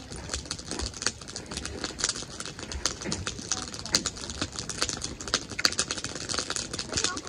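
Spinning fishing reel being cranked, a fast, irregular clicking rattle, as a brook trout is reeled in to the bank.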